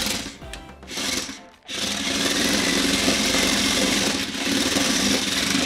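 Toy RC rock crawler's small electric motors whirring and its hard-rubber wheel rollers rattling against a tabletop as the car spins in place. Short bursts at first, then steady, loud running from about a second and a half in.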